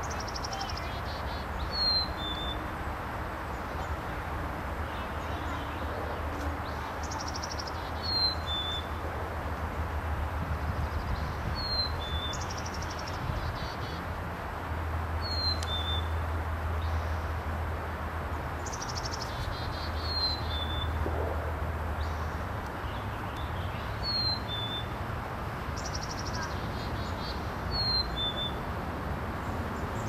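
Male Anna's hummingbird singing from a perch: a short scratchy, buzzy phrase ending in two thin squeaky notes, repeated about every four seconds over a steady low rumble.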